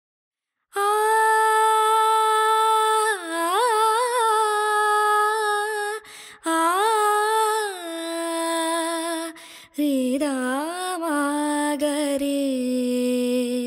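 A solo voice sings a slow, wordless melody with long held notes and ornamental turns between them, in a few phrases with short breaks, the pitch dropping lower in the later phrases. It is the opening of a wedding film's original score.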